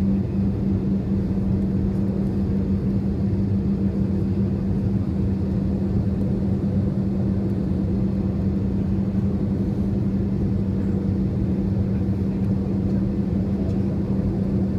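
Steady cabin noise inside an Airbus A320-214 on approach to landing: the drone of its CFM56-5B turbofan engines and the airflow over the fuselage, with a steady low hum.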